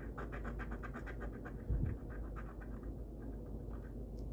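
A coin scratching the coating off a scratch-off lottery ticket in quick back-and-forth strokes, about ten a second, thinning out near the end. A dull low bump just under two seconds in is the loudest moment.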